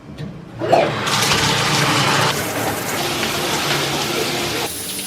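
Water gushing loudly in a bathroom. It starts suddenly about a second in with a rush, runs steadily, and eases off near the end.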